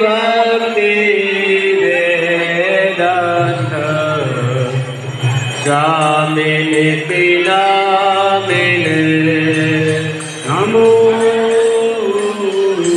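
Devotional chanting sung to music, with long held notes that slide between pitches over a steady accompaniment.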